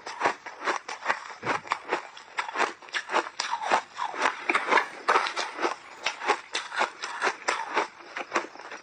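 Close-up crunching and chewing of refrozen shaved ice with mixed berries frozen in, bitten in big bites: a rapid, irregular crackle of snapping ice with no pauses.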